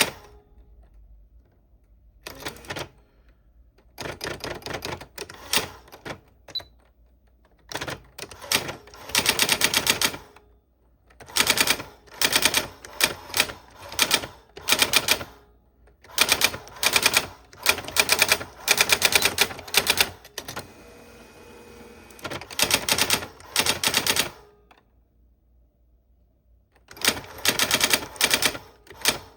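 An old typewriter being typed on: runs of rapid key strikes broken by short pauses.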